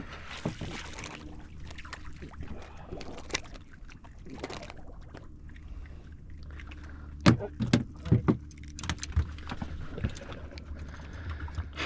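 Sharp knocks and clinks of gear being handled on a small fishing boat while a just-caught trout is unhooked, loudest in a cluster about seven to eight seconds in, over a steady low hum.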